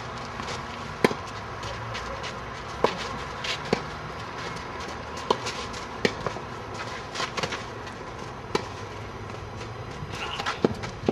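Tennis rally: sharp pops of the ball off racket strings and its bounces on a clay court, about one every second or two, over a steady background hiss.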